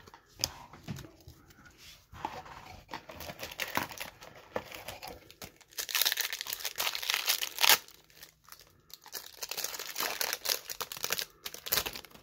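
Foil wrapper of an O-Pee-Chee Platinum hockey card pack being torn open and crinkled: a dense run of crinkling, loudest in a spell just past the middle and again near the end.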